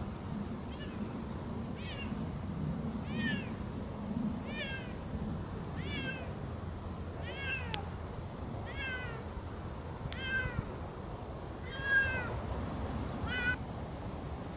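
Siamese cat meowing over and over, about ten short rising-and-falling meows, one roughly every second and a half.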